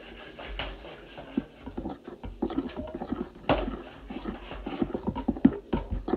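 A spoon stirring hotcake batter in a plastic mixing bowl, knocking and scraping against the bowl's sides in quick, irregular clicks that grow busier and louder after the first second or so.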